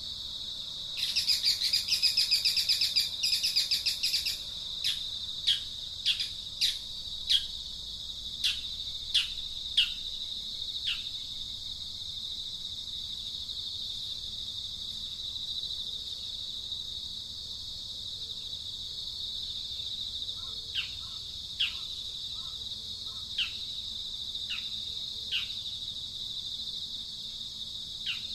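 A steady high insect drone, with a burst of rapid bird chattering about a second in, followed by a series of short, falling bird chirps about a second apart that pause in the middle and start again later.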